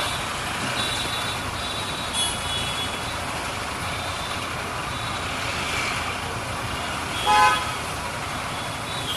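Steady road-traffic noise with a vehicle horn sounding once, short and loud, about seven seconds in.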